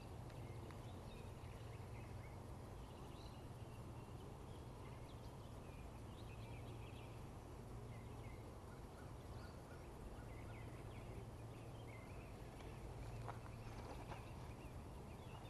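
Faint outdoor ambience: a steady low hum with scattered small bird chirps.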